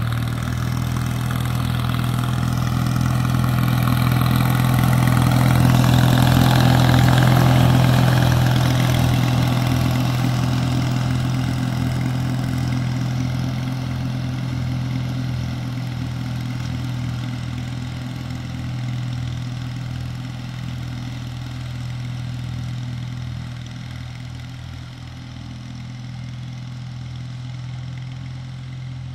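Allis-Chalmers T816 garden tractor's engine running at a steady speed with its 48-inch mower deck engaged while mowing. It grows louder as the tractor passes close, about seven seconds in, then fades as it drives away.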